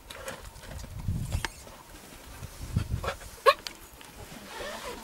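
Cheetah vocalising at close range: low rumbling sounds about a second in and again near three seconds, and one short, sharp, high call at about three and a half seconds.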